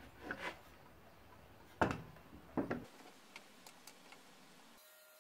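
Clicks and knocks of a Makita cordless circular saw and its guide-rail adapter being handled and adjusted by hand, with two louder knocks about two and two and a half seconds in, then a few light ticks.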